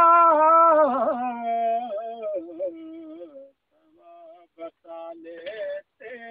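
A solo voice singing a naat with no instruments. A long held high note breaks into a wavering melismatic run about a second in, then steps down through lower sustained notes. The voice stops briefly past the middle and comes back in short phrases near the end.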